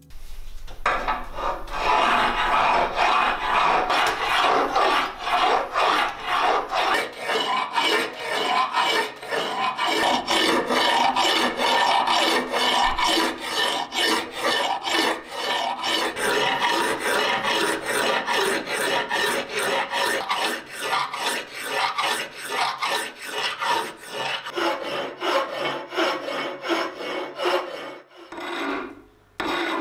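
Hand file rasping back and forth across a rusty steel axe head held in a vise, in quick, even strokes, taking the surface down to bright steel. The strokes break off briefly near the end.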